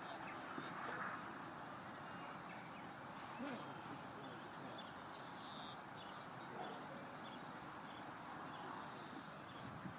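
Faint outdoor background noise, with a bird giving a short high call twice, about halfway through and near the end.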